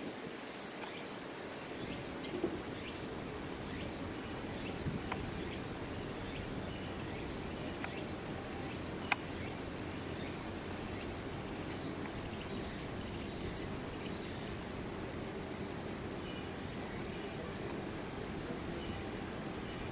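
Steady outdoor background with insects chirping in a fast, even high-pitched pulse, and a few faint clicks.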